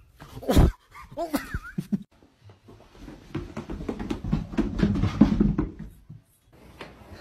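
Dog sounds: a sharp bark, then a few short puppy yelps that bend up and down in pitch. After that comes a run of soft low thumps and scuffing as a big dog goes down carpeted stairs.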